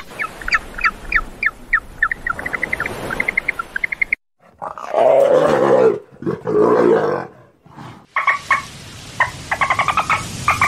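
Two loud, deep growling roars from a leopard, each about a second long, about halfway through. They are set between quick series of short, high chirping calls before and after.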